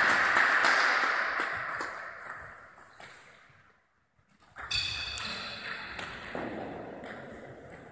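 Sounds of a table tennis hall between points: a loud wash of echoing hall noise fades away over the first couple of seconds, then after a brief hush a few light clicks and pings, like a celluloid ball tapped on a bat or the table, ring out about halfway through.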